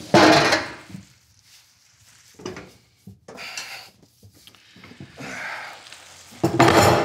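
Kitchen handling noises: a loud clatter just after the start as chicken is tipped from a plate into a frying pan, then a few softer knocks and scrapes, and a heavy thud near the end as a large wooden cutting board is set down on the counter.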